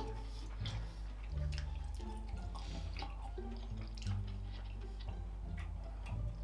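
Background music: a steady bass line under short plinking notes, with a few faint clicks.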